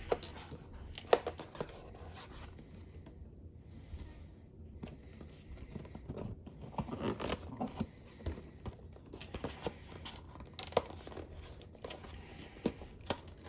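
Cardboard product box being pried and torn open by hand: irregular scraping, crinkling and tearing, with a sharp snap about a second in.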